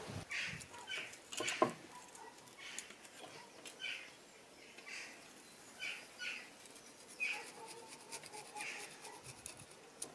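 A small hand scraper scraping old gasket remains off the gasket surface of a Mercury 2.5 hp outboard's powerhead, in short, irregular scratchy strokes about one a second.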